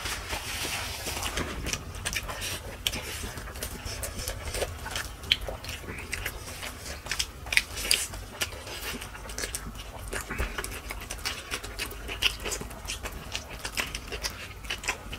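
Close-miked eating: a person chewing and biting into mutton on the bone with rice, with irregular wet clicks and smacks.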